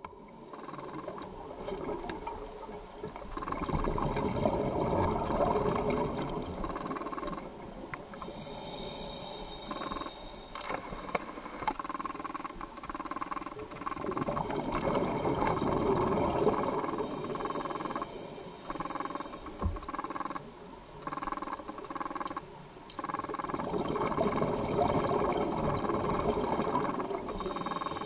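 Underwater sound of scuba breathing through a regulator: a high hiss of inhalation three times, each followed by several seconds of bubbling exhalation, with faint clicks from ocean triggerfish among it.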